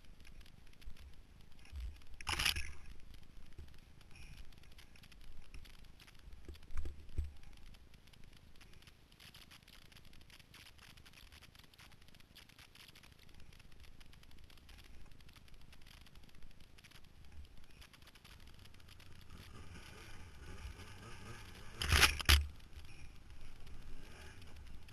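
Muffled bumping and rumbling of a Yamaha Nytro snowmobile ride, picked up by a mounted camera in its case, with two sharp loud knocks, one about two seconds in and one near the end.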